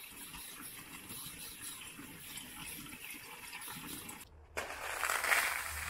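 A kitchen tap runs steadily into a plastic tub of gas-fireplace rocks and soapy water in a stainless steel sink, overflowing to flush the suds out. The pouring stops abruptly about four seconds in, and a louder, rougher noise takes over near the end.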